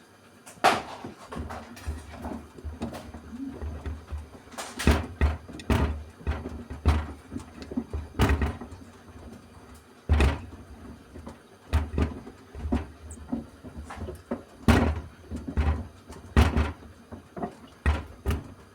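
Shoes tumbling in the drum of a Beko WMY81283LMB2 washing machine during a delicates main wash, knocking and thumping against the drum at irregular intervals. The knocks begin about a second in, as the drum starts turning.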